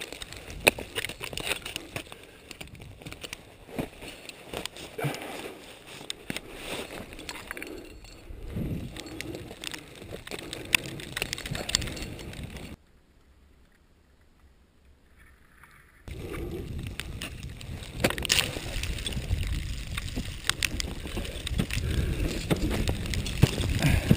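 Close-up handling noise of a climber's gear: clicks and knocks of carabiners and ice tools, with rustling gloves and clothing and scraping against snow and rock. The sound drops almost to silence for about three seconds in the middle, then resumes just as busy.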